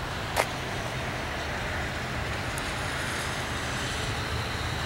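Steady road-traffic noise with the hiss of tyres on wet pavement, and one short click about half a second in.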